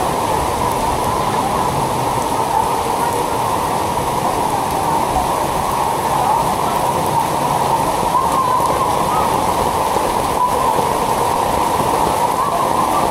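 Heavy rain falling steadily onto floodwater that covers a street, a dense, even pattering on the water's surface.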